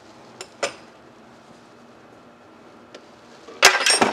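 A couple of light clicks, then loud metallic clanking and clattering near the end as the heavy bearing housing is handled and shifted in the drill-press vise. A faint steady hum runs underneath.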